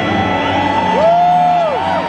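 Large stadium crowd cheering and whooping over the tail of orchestral music, with several long rising-and-falling whoops about halfway through.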